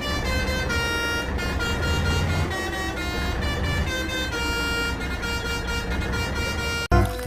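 Vehicle sound effect: a steady engine rumble under held horn-like tones that change pitch in steps, cutting off suddenly near the end.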